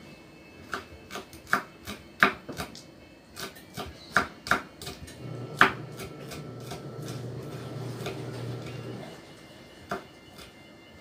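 Kitchen knife chopping green chili on a wooden cutting board: sharp, irregular knocks of the blade on the board, about a dozen in the first half, then one more near the end.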